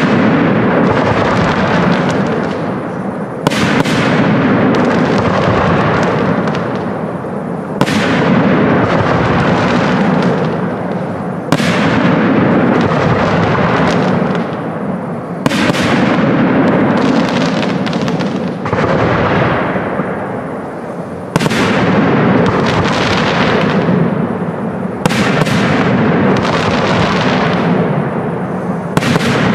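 Aerial firework shells of a professional display bursting with sharp loud bangs about every four seconds, each bang followed by several seconds of dense crackling that slowly fades.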